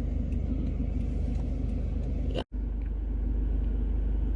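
Car engine and road rumble heard from inside the cabin, steady and low. It drops out abruptly for a split second about two and a half seconds in, then carries on.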